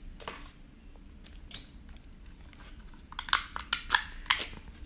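Foil lid being peeled off a small plastic cup of ranch dipping sauce: a few scattered crackles, then a quick run of sharp crinkling snaps from about three seconds in.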